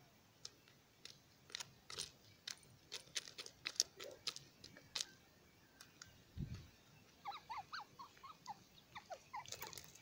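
Grey francolin pecking among pebbles: a run of sharp beak clicks on stone through the first half. Then come a dull low thump and a string of soft, short rising chirps.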